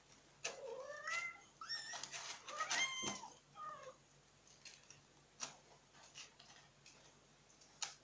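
Kittens mewing: about five short, high-pitched mews in the first four seconds, several rising in pitch. Afterwards, light scratching and a few sharp clicks from kittens moving in clay cat litter.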